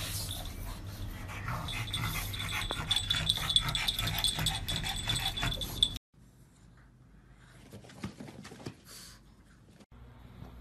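Pug dog sounds with many clicks, and a steady high whistle-like tone from about two seconds in. The sound drops suddenly to much quieter dog sounds about six seconds in.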